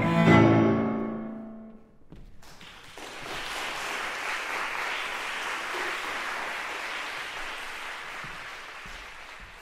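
Cello and grand piano end on a final chord that rings out and dies away over about two seconds. An audience then applauds steadily, the clapping slowly fading toward the end.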